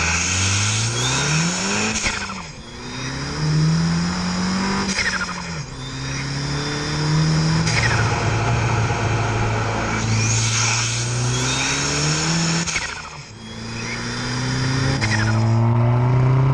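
Stage 2 remapped Ford Fiesta ST's turbocharged 1.6-litre four-cylinder engine pulling hard under acceleration. Its note rises steadily and drops back again and again as it changes up through the gears, with two brief lifts off the throttle, one about two and a half seconds in and one near thirteen seconds.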